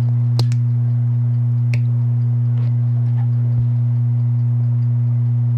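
Steady low electrical hum, like mains hum on the sound track, with a fainter second tone above it. A few faint clicks sound through it, about half a second, two seconds and three and a half seconds in.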